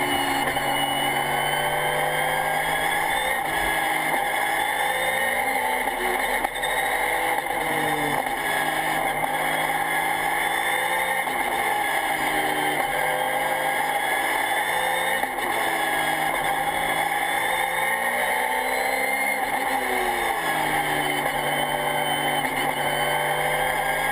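Race car engine heard from inside the cockpit, revving up and dropping back again and again as the car is driven hard through the gears.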